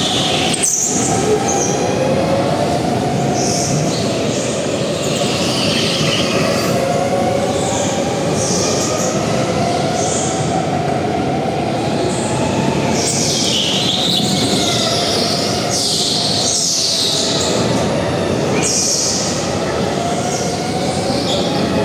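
Go-kart driving on a track. The motor's pitch rises and falls with speed, and short, high tyre squeals come every second or two through the corners.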